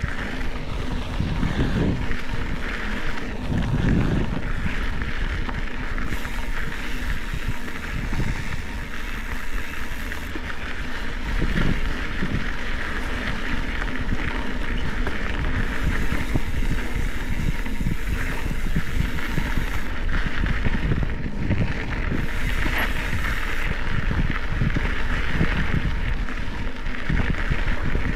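Wind noise fluttering on the microphone over the steady rolling of a Specialized Epic mountain bike's tyres on a dry dirt singletrack.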